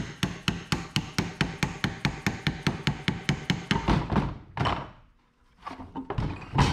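Rapid, even mallet taps, about six a second, on the tabs of a rear differential cover to knock it loose from the housing. The taps stop about four seconds in and give way to a few scrapes and clunks as the cover comes free, with one loud knock near the end.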